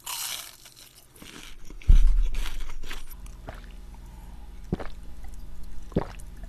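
Crunchy bite into fried shrimp batter, then chewing. About two seconds in comes a loud low thump, followed by gulps of cola from a glass about every second and a half.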